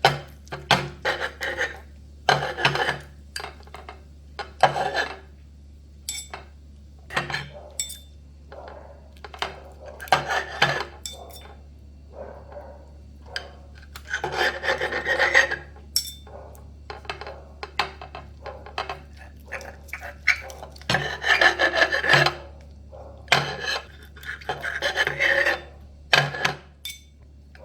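Knife cutting boiled octopus into small pieces on a cutting board: irregular sawing strokes and knocks, some in longer rubbing runs.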